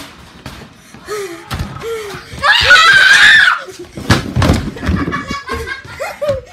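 A child screams shrilly for about a second near the middle, among short vocal yelps and a few knocks and thuds like a door banging or feet on the floor.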